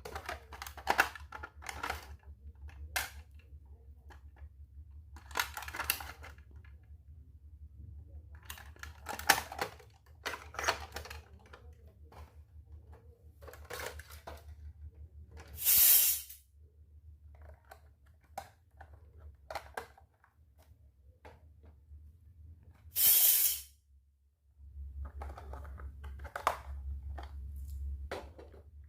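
Miniature toy kitchen pieces and their packaging being handled during unboxing: scattered small clicks, taps and rustles, with two louder short rasping bursts, one about halfway through and one a few seconds later.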